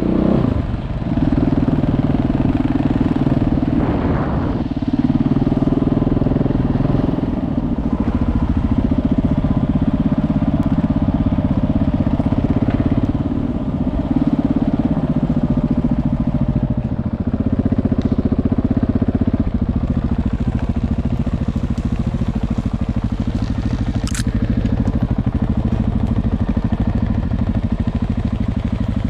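Motorcycle engine running at low trail speed, its pitch and level stepping up and down as the throttle opens and closes, with one brief rev about four seconds in. A single sharp click sounds late on.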